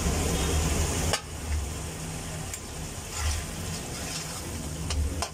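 A tomato-and-shrimp-paste sauce sizzling in a stainless wok while a metal spoon stirs it, with a few light scrapes and taps of the spoon against the pan. There is a sharp knock about a second in, after which the sizzle is quieter.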